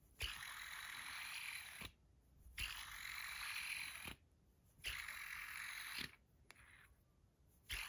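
Stainless steel Edamame fidget spinner flicked and stopped by hand three times, with a fourth spin starting near the end. Each spin opens with a sharp click and runs as a steady bearing whir that cuts off suddenly when the fingers stop it.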